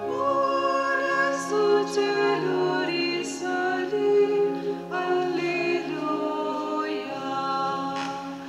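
A choir singing a slow hymn in held notes with changing chords, the opening hymn of a Catholic Mass.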